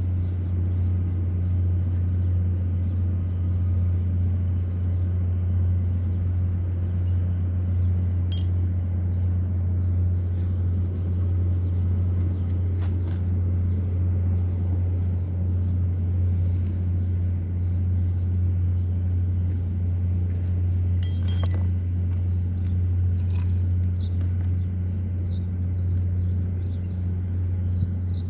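Steady low hum of running machinery, unchanging throughout, with a few faint clicks and taps over it.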